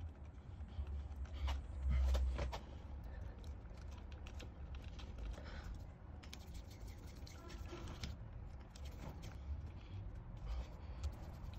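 Small clicks and rustles of electrical wires and a plastic screw terminal block being handled in a wall box, over a low rumble that swells about two seconds in.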